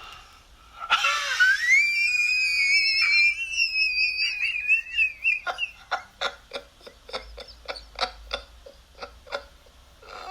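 Demonic laughter sound effect: a high, wavering shriek that rises in pitch and is held for several seconds, then breaks into a run of short rhythmic 'ha' pulses that slow and fade.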